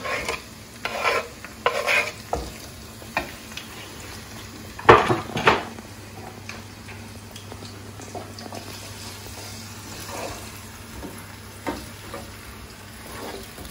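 Diced onion and spring onion sizzling gently in oil in a frying pan, with a wooden spatula scraping and knocking against the pan. Two sharp clatters of kitchenware about five seconds in are the loudest sounds.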